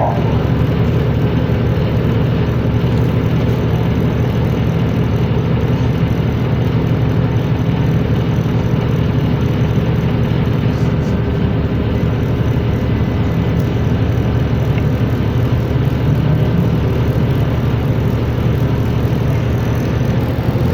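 New Flyer XN60 articulated natural-gas city bus running steadily, a low engine and drivetrain drone with a faint steady whine above it.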